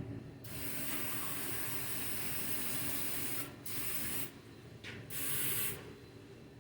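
Aerosol brake cleaner sprayed onto transmission parts: one long hissing spray of about three seconds, then two short bursts.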